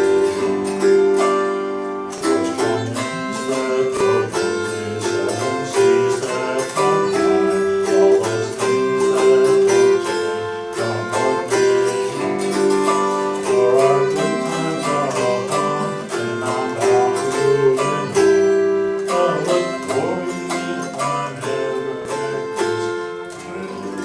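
Acoustic guitar strummed through a folk song, with held notes over the chords; the playing eases off near the end.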